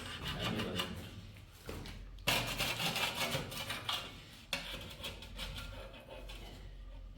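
Repeated rough scraping strokes of a hand tool against a hard surface, loudest for a couple of seconds in the middle.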